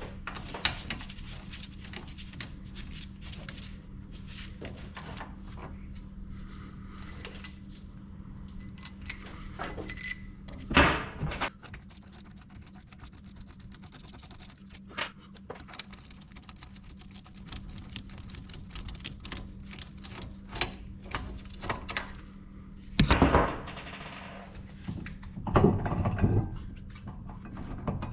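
Metal parts and hand tools clinking and clunking during a differential teardown, with many small clicks and a few louder knocks. A steady low hum runs underneath.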